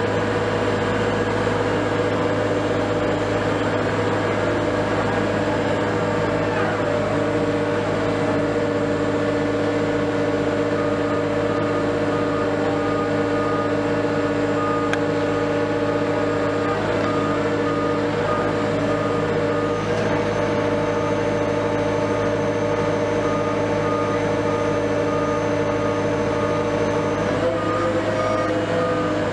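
Heavy diesel engines of mobile cranes running steadily at a constant pitch. A short electronic beep, such as a reversing or motion alarm, starts repeating about a third of the way in and goes on to the end.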